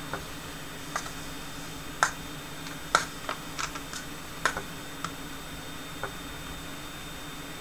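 Sparse light clicks and taps, about ten spread over a few seconds, from a knife scoring a diamond pattern into Leberkäse meat batter and from the aluminium foil trays being handled. A steady low hum runs underneath.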